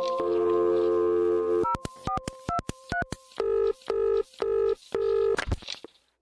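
Telephone line tones from a speaker: a held dial tone, then about eight quick keypad dialing tones at changing pitches, then four evenly spaced beeps about two a second. It ends in a short sweep and cuts off to silence.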